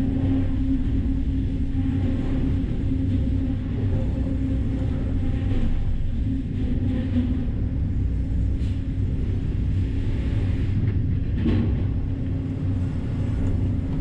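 Band sawmill machinery running steadily, a low hum and rumble heard from inside the operator's enclosed control cab, with a brief knock near the end.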